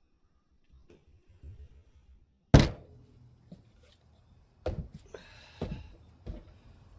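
One heavy thump on a wooden stand of 2x4s and 4x4s, then several lighter knocks and thuds: someone stepping up onto the stand to test it with their body weight.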